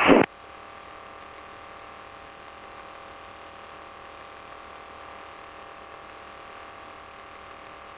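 Steady, faint drone with a few held tones: the RV-9A's engine and cockpit noise heard through the headset intercom audio, with no change throughout.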